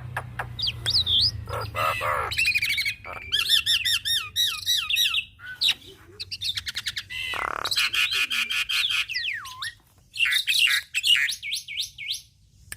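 Javan myna singing a varied, loud song: rapid clicking rattles, squawks and quick runs of looping whistles. About two thirds of the way through there is one long falling whistle.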